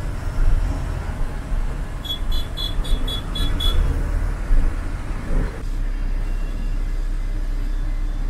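Ashok Leyland bus heard from inside the cab, running on the road with a steady low rumble. About two seconds in comes a quick run of about seven high electronic beeps, and past the halfway mark the sound changes abruptly to a steadier, smoother hum.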